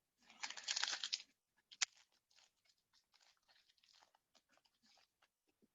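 A foil trading-card pack being torn open: about a second of loud crackling crinkle, a sharp snap of the wrapper, then faint scattered crinkles as the wrapper and cards are handled.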